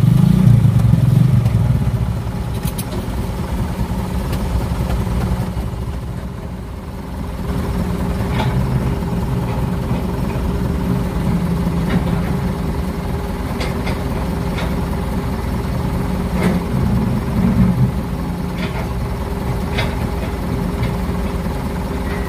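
Heavy diesel engine of a working excavator running steadily, with a few short sharp knocks of metal.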